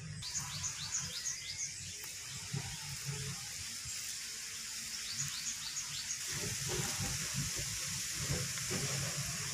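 Birds chirping in short, repeated high calls over a steady watery hiss. From about six seconds in comes soft, irregular scraping and rubbing as ground turmeric paste is wiped by hand off a stone grinding slab and its cylindrical grinding stone.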